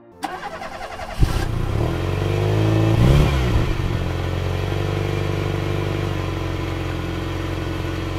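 Engine starting up with a sharp bang about a second in, revving up and back down around three seconds in, then running steadily.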